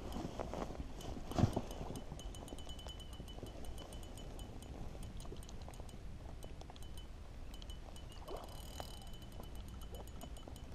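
Spinning reel being cranked while a hooked fish is played: a quick, even run of light metallic ticks from the reel with a faint high whine. A single knock about a second and a half in is the loudest sound.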